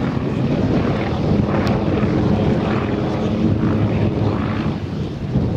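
Engine and propeller of a large radio-controlled Yak-52 model aircraft running at power in flight, a steady drone whose pitch shifts a little as the model manoeuvres.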